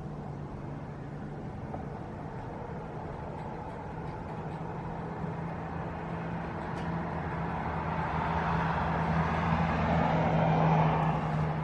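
Helicopter coming in to land: a steady rotor and engine hum with broad whooshing noise that grows steadily louder and peaks near the end.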